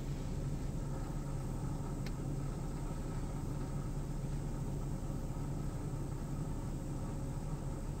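Steady low engine hum, unchanging, with a single faint click about two seconds in.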